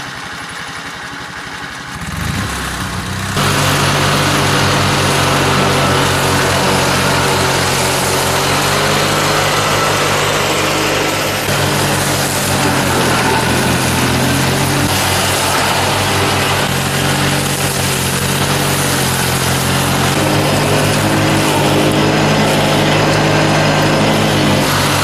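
Simplicity 6216 garden tractor's engine running steadily while it mows tall clover and weeds. It grows louder about two to three seconds in, then holds, its note shifting slightly a few times.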